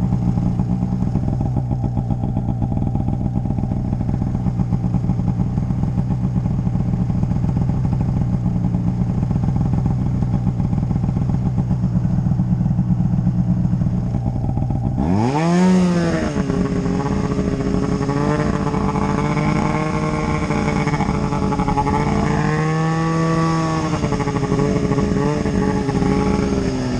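Snowmobile engine running steadily at low revs, then about halfway through it revs up sharply and holds at high revs under load, the pitch wavering, before easing off near the end.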